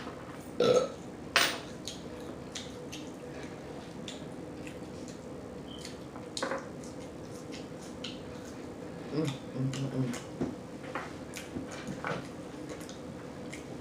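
Close-miked eating sounds: chewing and smacking, with scattered sharp clicks and taps, two of them loud about a second in. A short low hum comes about nine to ten seconds in.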